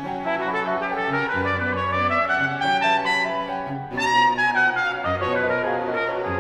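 A brass horn plays a jazz melody over a string quartet, with sustained cello notes underneath. Near the middle the line breaks off briefly, then comes back in on a high note that falls away.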